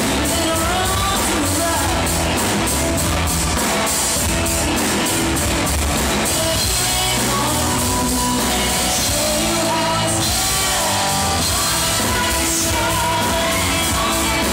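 Live rock band playing loudly, with a woman singing lead over guitar and drums.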